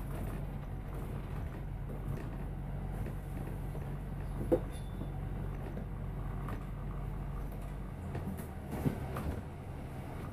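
A double-decker bus running steadily, heard from inside the bus, with an even engine hum and light body rattles. A single sharp knock comes about four and a half seconds in, and the engine note changes about eight seconds in.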